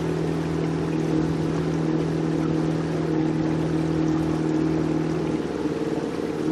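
Small motorboat's engine running at a steady pitch over the wash of water, its note wavering briefly near the end before settling.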